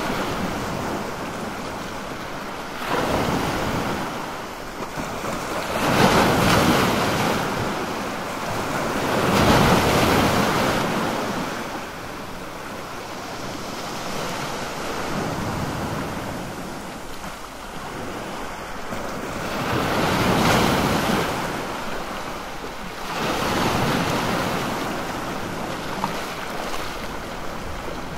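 Sea waves at a fishing harbour washing in and drawing back, swelling in surges every few seconds, with a calmer stretch in the middle.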